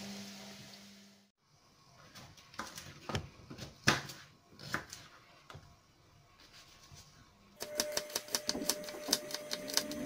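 Chopped onion sizzling in olive oil in a frying pan, cut off about a second in. Then a kitchen knife cutting garlic cloves on a plastic chopping board: a few scattered taps, then a quick run of chopping taps, several a second, over the last couple of seconds.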